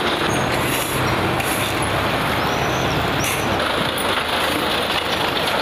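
Dump truck engine running steadily at idle.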